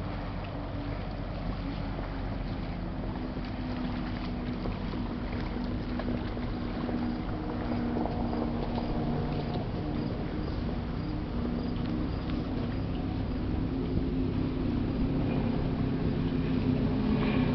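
Steady low engine drone of a passing freighter, a hum with a few held tones over a low rumble, growing gradually louder.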